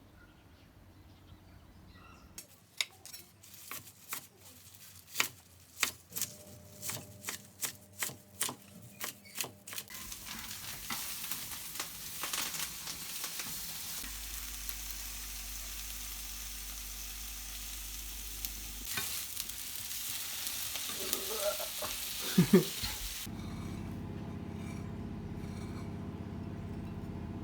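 A run of sharp knocks at about two a second, then a steady hissing sizzle like food frying in a pan, which cuts off suddenly near the end.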